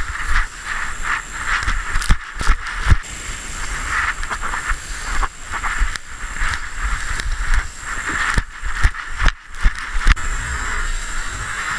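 Wind and rubbing noise on a GoPro strapped to a running Bouvier des Flandres: shaggy fur brushing over the camera housing, with a low rumble and an uneven pulsing hiss. Clusters of sharp knocks come around two to three seconds in and again near nine seconds.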